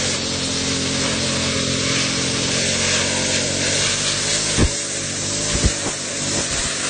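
String trimmer edging grass along a brick path: its motor runs steadily while the spinning line cuts the grass. Two short knocks come about four and a half and five and a half seconds in.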